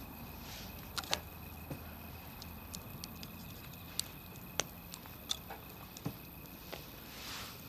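Wood campfire crackling: about ten scattered sharp pops and snaps over a low steady rush, with a soft hiss swelling briefly near the start and again near the end.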